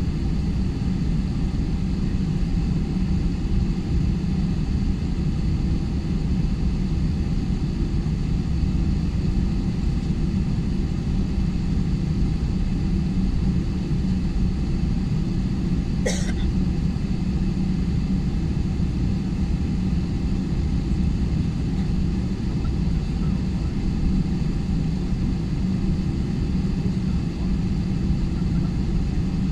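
Steady low rumble of an airliner's engines and cabin air heard from inside the cabin while the plane taxis, with one short sharp sound about halfway through.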